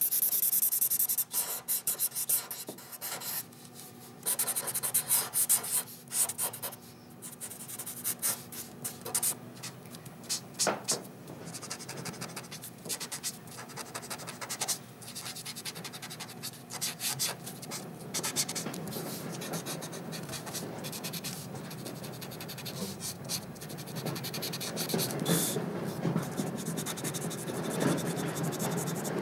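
Marker pens scratching and rubbing across drawing paper in quick, irregular strokes as black hatching and shading are inked in. The strokes come in short bursts and grow denser and fuller near the end.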